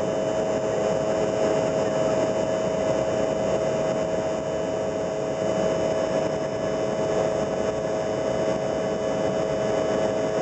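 Steady jet airliner engine and airflow noise heard inside the passenger cabin while climbing out after takeoff, with a constant droning tone over the rush.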